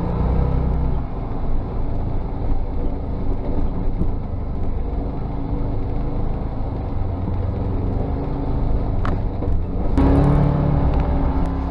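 UTV engine running as the machine drives along, a steady rumble, with a few sharp knocks near the end.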